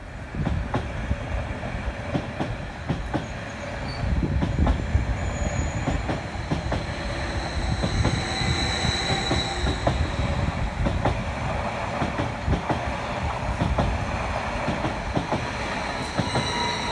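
Stansted Express electric train passing over a level crossing: a steady rumble with many rapid clacks of the wheels over the rail joints. It starts abruptly just after the beginning.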